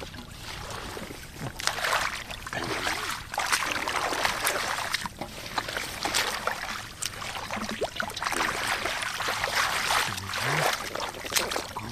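Hands sloshing and churning through shallow muddy water, groping in the mud and weeds for catfish: irregular wet splashing that swells and fades about once a second.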